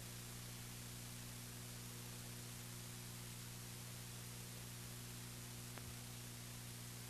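Faint steady hiss with a low electrical hum underneath, and nothing else of note: the background noise of an old recording with no programme sound on it.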